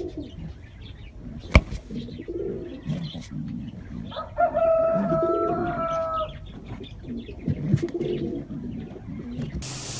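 A white pigeon brooding its squabs gives repeated low coos and grunts, in the defensive manner of a sitting bird whose nest is being reached into. There is one sharp slap about a second and a half in, and a steady held tone for about two seconds from a little after the four-second mark.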